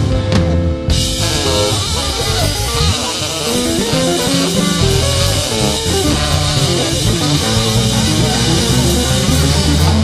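Live band playing an instrumental passage on electric guitar, bass guitar and drum kit, with no vocals.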